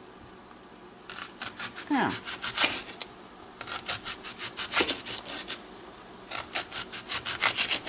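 Serrated knife sawing back and forth through a raw onion onto a wooden cutting board: three runs of quick scraping strokes, about five a second, with short pauses between them.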